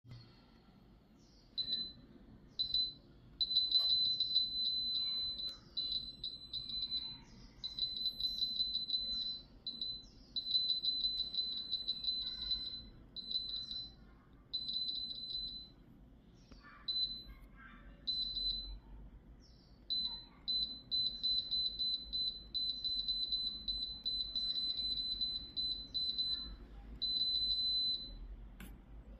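Digital air fryer's touch control panel beeping at a high pitch as its buttons are pressed: single short beeps mixed with long runs of rapid beeps, the kind given while a setting button is held and the value scrolls, on and off throughout.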